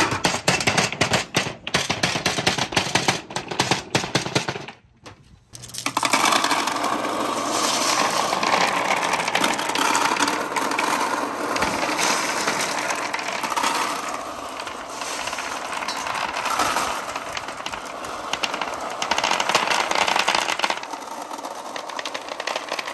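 Billiard balls knocking together in sharp separate clacks for the first few seconds. After a brief pause, a dense continuous rattle of many glass marbles pouring onto a wooden pegboard slope and clattering down it.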